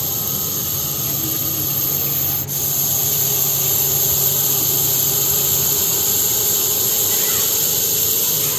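Russell's viper hissing: a loud, long hiss that breaks off briefly about two and a half seconds in, then goes on.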